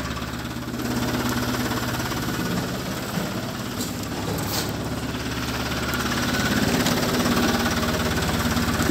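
Mahindra Supro mini truck engine idling steadily.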